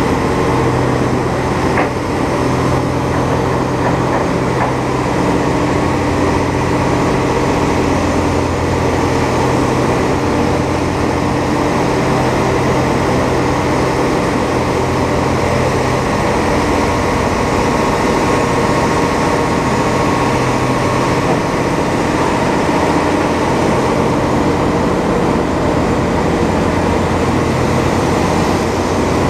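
Heavy truck driving steadily on the road: a continuous low engine drone under road and wind noise, picked up outside the cab.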